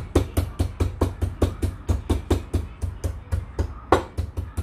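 Garlic cloves being pounded with the butt of a kitchen knife's handle on a wooden cutting board: rapid, even thuds, about five a second, with one harder knock a little before the end.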